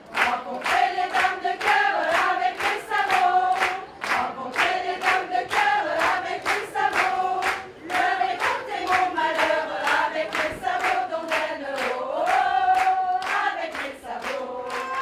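A group of women singing a song together in unison, their voices moving in a steady, rhythmic melody.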